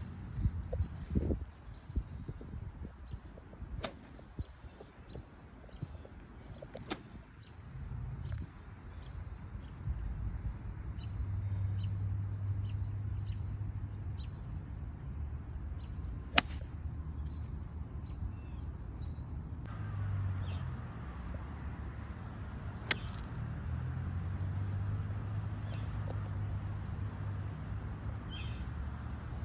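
Steady high insect trilling from the grass, with four sharp clicks; the loudest, about halfway through, is a golf iron striking the ball.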